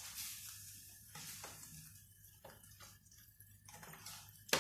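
Freshly oven-roasted pork chops crackling and sizzling in a hot roasting pan while steel tongs turn them over, scraping and clicking against the pan several times. The loudest is a sharp clink near the end.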